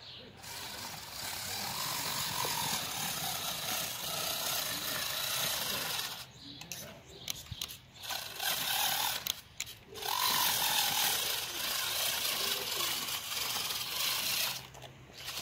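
Homemade RC truck's brushed electric motor and gear drive whining, the pitch rising and falling with the throttle as it drives over gravel. It cuts out briefly twice, and again near the end.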